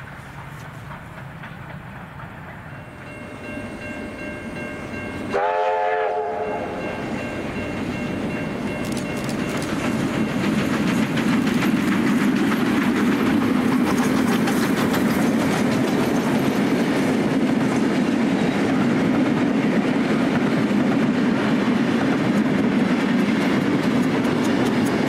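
A steam locomotive's whistle gives one short blast about five seconds in as the train approaches. The train then runs past close by, a steady loud rumble of locomotive and carriages with wheels clicking over the rail joints.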